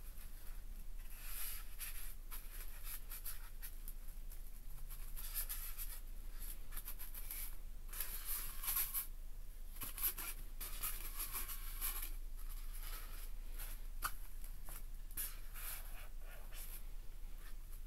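Irregular scratchy rubbing and rustling, many short strokes in quick succession, as hands press and shape a sawtail surgeonfish's skin stuffed with filler on a styrofoam board.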